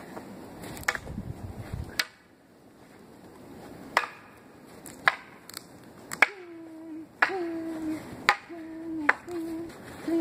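Carved wooden practice swords clacking together as they strike and block, about ten sharp knocks at irregular intervals. From about six seconds in, a low hooting vocal sound follows several of the strikes.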